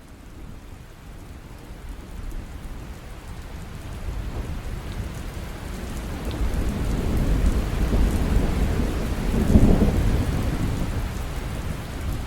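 Steady rain with rolling thunder, swelling gradually louder, with the heaviest thunder rumble about nine to ten seconds in.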